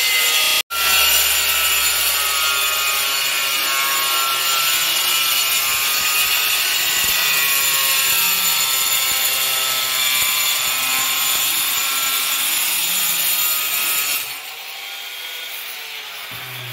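Angle grinder with a cutting disc running and cutting through a thin white board. About 14 seconds in the cut ends and the grinder winds down with a falling whine.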